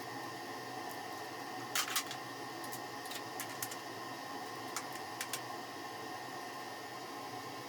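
Steady workshop hum with a few light clicks and taps, the loudest a short cluster about two seconds in.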